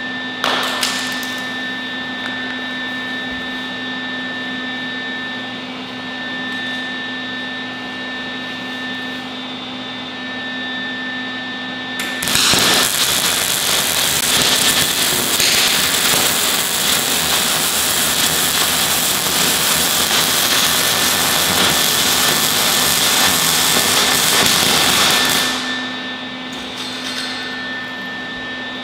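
A steady machine hum with a high whine, then, about twelve seconds in, a MIG welding arc starts on a steel pipe joint. It runs as a loud, dense crackle for about thirteen seconds and stops, leaving the hum.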